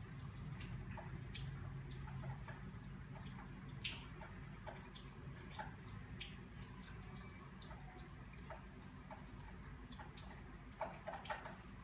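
Light, scattered clicks and ticks of a crochet hook working stitches in yarn, over a low steady hum.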